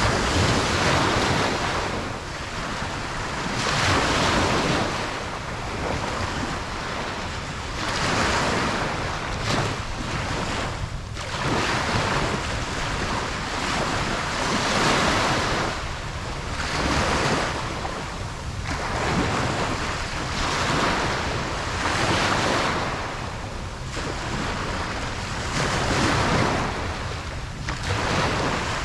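Ocean waves breaking and washing up a beach, a steady surf that swells and falls about every two seconds, with some wind.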